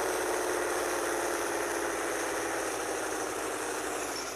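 Car engine idling steadily, gradually getting quieter.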